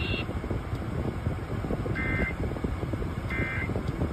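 Truck air conditioning blowing steadily, with two short electronic data bursts from the car radio about two and three seconds in: the Emergency Alert System end-of-message tones that close a tornado warning broadcast.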